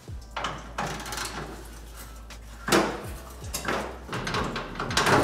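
Scattered metal knocks and clunks as the old radiator is unbolted and worked loose from the truck's radiator support with hand tools. They come at uneven intervals, the loudest about two and a half seconds in.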